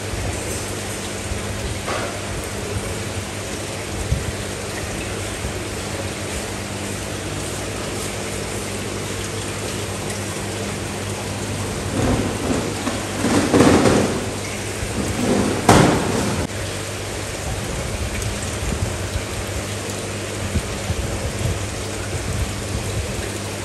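Steady splashing of falling water with a low hum under it, and two louder rushing splashes about thirteen and sixteen seconds in.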